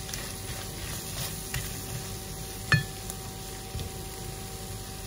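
Food sizzling as it fries in a pan, with a steady faint hum underneath and small clicks. One sharp, ringing clink about halfway through.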